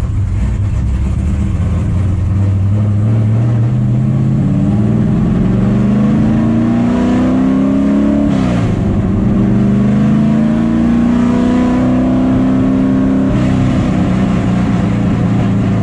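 A NASCAR race truck's 900-horsepower engine accelerating, heard from inside the cab. It pulls up in pitch through a gear, drops sharply on a manual upshift about eight seconds in, then climbs again before easing off near the end.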